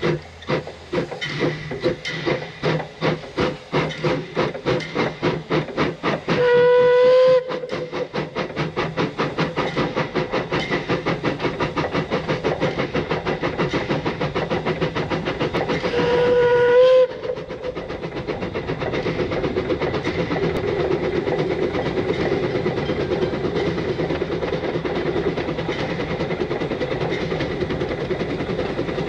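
Narrow-gauge steam locomotive working hard, its exhaust chuffing at about two beats a second and quickening to a fast, even beat as the train picks up speed. Two short whistle blasts of about a second each sound about six seconds in and again about sixteen seconds in, as the train nears a road level crossing.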